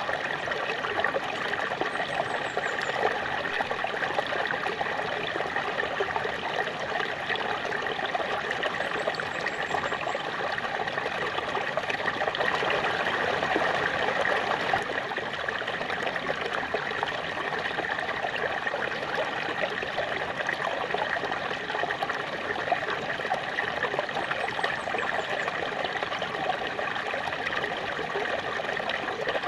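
Small waterfall splashing and running steadily, an even rushing hiss with no breaks.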